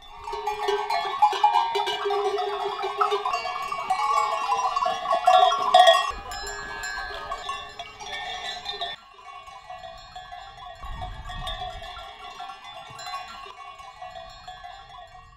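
Many goat bells clanking and ringing together as a herd of goats moves through pasture. The bells are loudest in the first half and fainter after about nine seconds.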